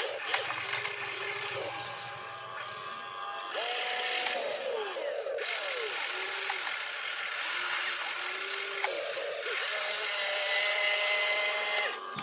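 Small electric motors of RC construction models whirring. The pitch rises and falls as they speed up and slow down, with a high whine that comes and goes.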